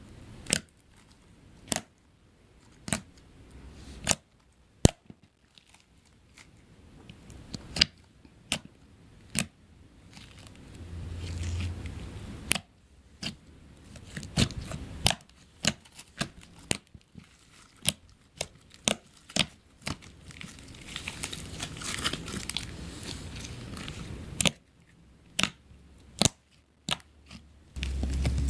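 Slime being squeezed and poked by hand, giving sharp pops and clicks at irregular intervals, with a few longer stretches of crackling.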